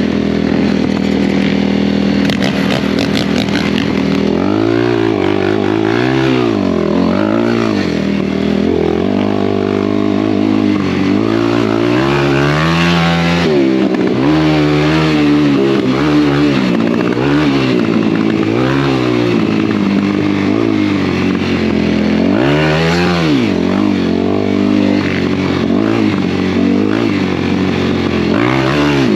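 Off-road vehicle engine idling steadily, then, from about four seconds in, revved up and down over and over in short blips about a second apart.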